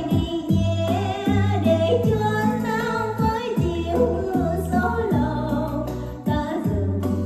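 A woman sings a slow Vietnamese bolero ballad into a handheld microphone, her voice wavering with vibrato over a karaoke backing track with a steady, repeating bass line.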